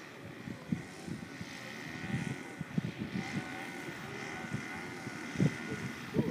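Radio-controlled scale Sopwith biplane model's motor and propeller droning, its pitch wavering as the model comes in low to land, with wind buffeting the microphone.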